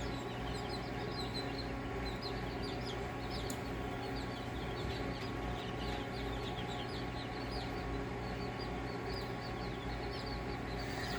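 A flock of young chicks, about four to six weeks old, peeping continuously with many short, high chirps overlapping. A steady low hum runs underneath.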